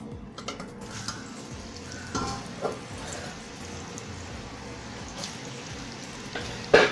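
Murukku frying in hot oil, a steady sizzle, with a few clinks of a utensil and a loud knock near the end.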